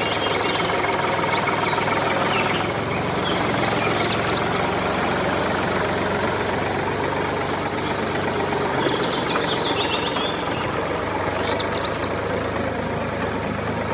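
An engine running steadily at idle. Over it, birds call: twice a descending trill, plus scattered short chirps.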